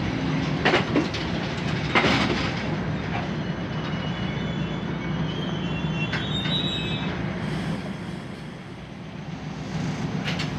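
Passenger train running on the rails, heard from inside the carriage as another train passes close alongside: a steady rumble with a few sharp knocks in the first two seconds and a thin wheel squeal from about three to seven seconds in.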